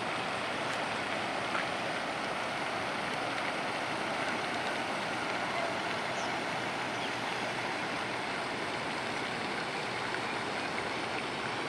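Steady, even hiss of rushing floodwater from streams running over their banks.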